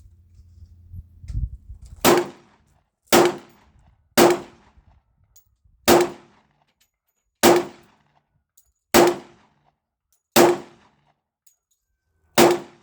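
Semi-automatic pistol fired eight times in slow, deliberate single shots, about one to two seconds apart, each crack followed by a short ringing tail.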